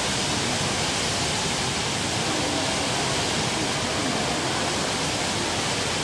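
HSBC Rain Vortex, an indoor waterfall pouring from an opening in the roof into a basin below, making a steady rushing hiss of falling water.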